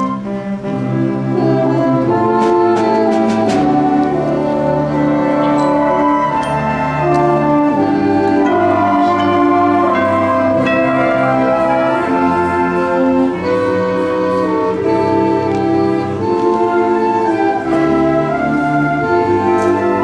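High school symphonic band playing a Christmas arrangement: brass, flutes, clarinets and saxophones in held, changing chords, with a few percussion strokes.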